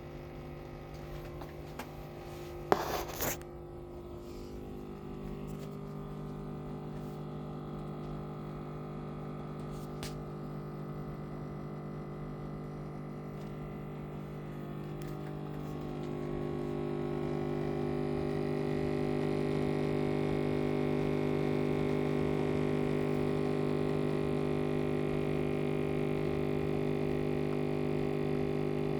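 Coffee machine running with a steady electric hum that grows louder about halfway through, with a brief clatter about three seconds in.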